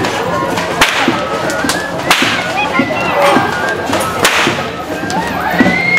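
Loud whip cracks from tlacololero dancers' chirriones (braided whips), one sharp crack about every one to two seconds.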